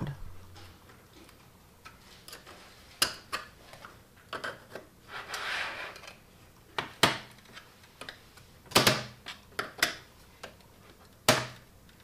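Scattered clicks and snaps of flat-tip screwdrivers prying the white plastic base of a Mac Mini G4 out of its aluminium case, the inner clips letting go one by one, with a short scrape about five seconds in.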